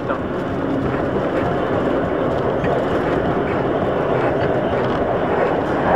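Vintage electric tram running along its track, heard from inside the car: a steady rumble of wheels on rails with faint clicks.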